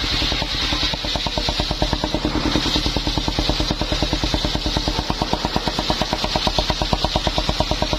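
Engine of a mobile circular sawmill running steadily, with a fast, even chugging beat and a hiss above it.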